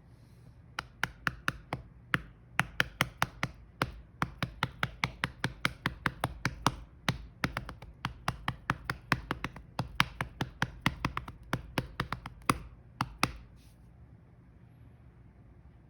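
A hand patting a Siamese cat's belly: a rapid, steady run of sharp pats, about four a second, that stops about 13 seconds in.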